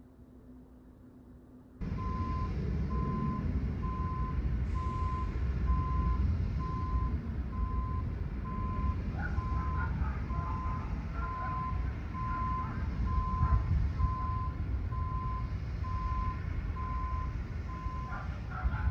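Quiet room tone, then a sudden switch to street noise: a steady low rumble of traffic and wind on the microphone, with a vehicle's reversing alarm beeping evenly about once a second.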